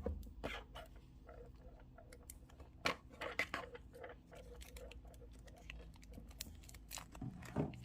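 Small sheets of origami paper being folded by hand: scattered soft crinkles and taps, with louder ones about three seconds in and near the end.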